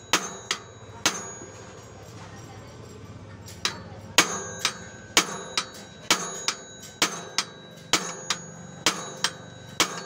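Metal hammer blows on a bicycle's bottom bracket, each a sharp ringing clank of metal on metal. Three strikes come in the first second, then a pause of about two and a half seconds, then a steady run of about two strikes a second to the end.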